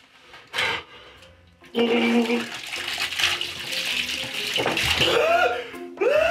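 Milk gushing from a gallon jug and splashing over a person and into a bathtub, starting about two seconds in and running for about three seconds. Music comes in near the end.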